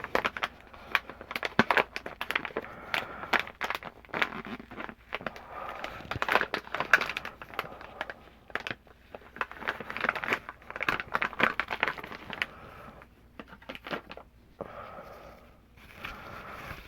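Plastic packaging crinkling and rustling, with scattered clicks and taps throughout, as a packet of makeup wipes is handled and a wipe is pulled out.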